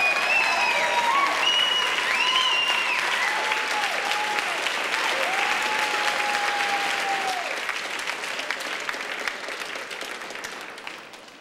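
Audience applauding and cheering, fading out near the end.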